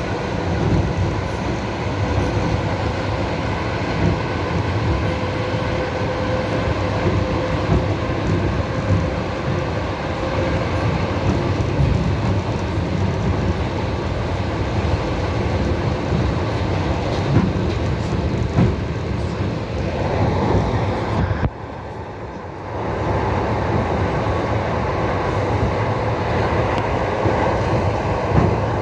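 Train running along the track: a steady rumble and clatter of wheels on rails, which dips briefly a little over 21 seconds in.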